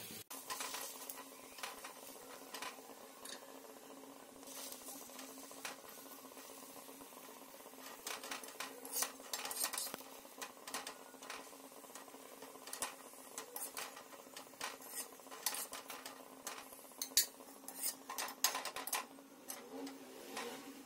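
Metal spatula scraping and tapping on a flat iron tawa as a paratha is pressed and turned while it shallow-fries. The sounds come as scattered light clicks and scrapes, busiest about eight to ten seconds in and again near the end, over a faint steady hum.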